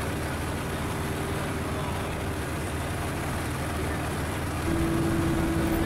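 Just Aircraft Highlander's propeller engine running at low power while the plane taxis on grass, a steady drone; the engine note gets a little louder and a steady higher tone joins it about three-quarters of the way in.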